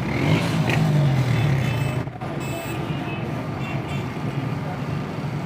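Steady low hum of an engine, with general street noise around it.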